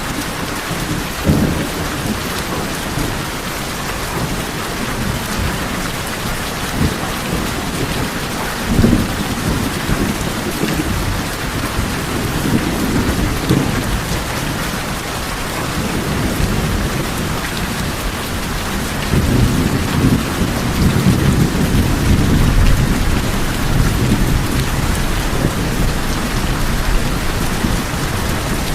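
Steady heavy rain falling on tin roofs, with thunder rumbling low underneath; the rumble swells louder about two-thirds of the way through.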